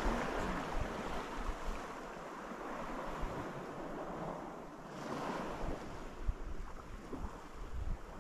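Small waves washing on a sand beach, swelling about five seconds in, with wind buffeting the microphone in low thumps.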